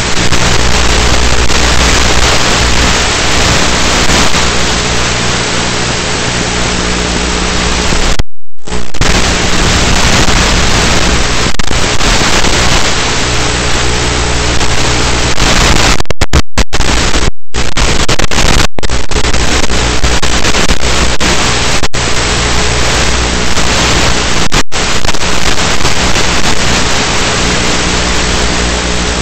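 Loud steady hiss with a low droning hum from an FPV plane's onboard camera audio, carried over an analog video link: the plane's electric motor, propeller and wind in flight, buried in transmission noise. The sound cuts out completely several times, the longest gap about eight seconds in.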